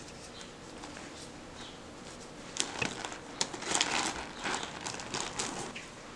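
Rustling and irregular light clicks of a crocheted cotton-yarn piece and its yarn being handled and turned over, starting about two and a half seconds in and fading near the end.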